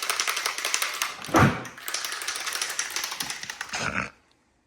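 Aerosol spray can being shaken hard, its mixing ball rattling fast, with a thump about a second and a half in; the rattling stops suddenly about four seconds in.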